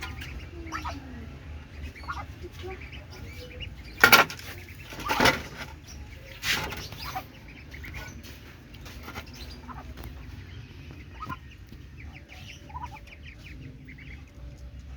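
Farmyard poultry calling, with small high peeps throughout and three loud, harsh calls about four, five and six and a half seconds in.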